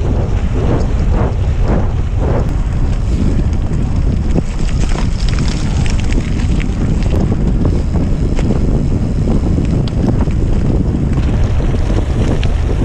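Wind rushing over the microphone of a gravel bike moving fast, over the steady rumble and crunch of tyres rolling on loose gravel, with a scatter of small clicks and knocks from stones and bumps.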